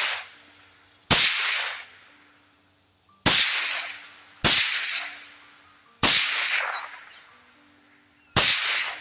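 Five suppressed rifle shots fired at an uneven pace through a full-size Otter Creek Labs Polonium suppressor with 55-grain ammunition, each a sharp crack followed by a short fading tail.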